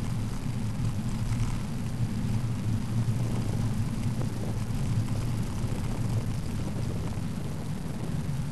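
Steady low rumble of wind buffeting a bicycle-mounted camera's microphone while riding along a road.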